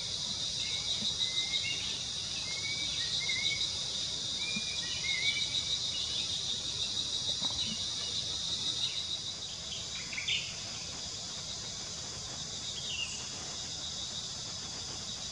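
Steady high insect chorus with a fast pulsing trill, with a small bird's short rising chirps repeated over the first five seconds or so and a couple of brief sweeping calls about ten and thirteen seconds in.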